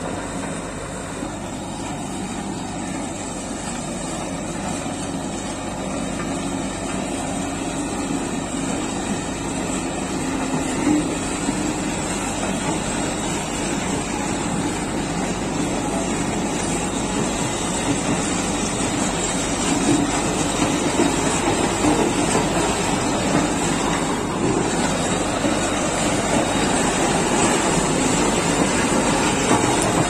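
Diesel road roller running steadily over a bed of loose broken-stone road base. It grows gradually louder as the camera draws close.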